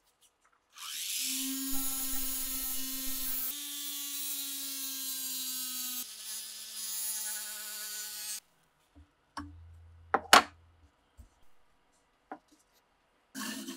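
Small corded rotary tool spinning a polishing wheel against the axe's wooden handle and steel tang: a steady high motor whine with a hiss that shifts pitch twice, then stops about eight seconds in. A few scattered clicks and knocks follow, one of them sharp and loud.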